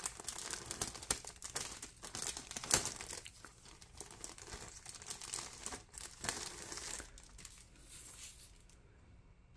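A thin clear plastic bag crinkling as it is handled and slid off a sprue of grey plastic model-kit parts. The crinkling thins out and quietens after about seven seconds.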